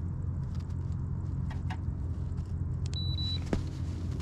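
Steady hum of the Old Town Autopilot 136 kayak's electric trolling motor, with a short high beep from its controls about three seconds in and a sharp click just after.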